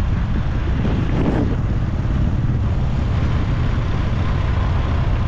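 Steady running noise of a moving vehicle, with heavy wind rumble buffeting the microphone.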